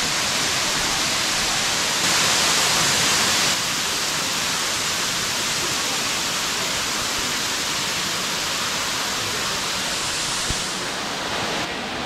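A waterfall's many streams pouring down a rock face, heard as a loud, steady rush of water. It grows louder for about a second and a half starting two seconds in.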